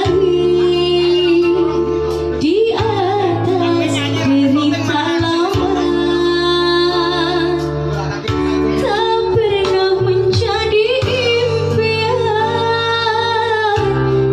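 A woman singing a melody with wavering vibrato on held notes, over an instrumental backing with steady sustained bass notes.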